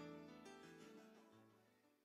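Background music with keyboard notes, fading out to near silence.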